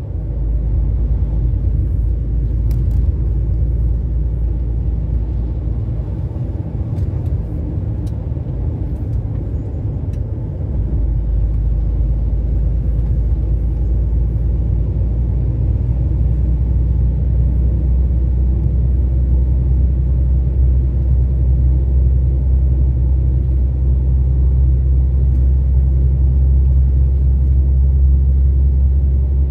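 Steady low rumble of engine and tyre noise heard from inside a moving vehicle's cabin. It grows a little steadier and louder about a third of the way through.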